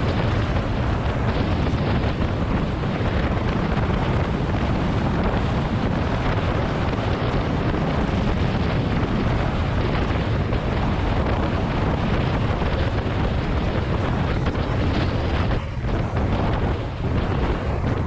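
Heavy wind buffeting an action camera's microphone on a fast road-bike descent at about 40 mph: a steady, loud roar with a few brief lulls near the end.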